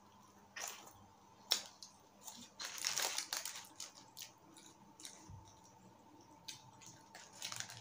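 Close-miked eating sounds: chewing on a fried chicken burger while its halves are pulled apart by hand, with sharp mouth clicks and a short crackling stretch about three seconds in.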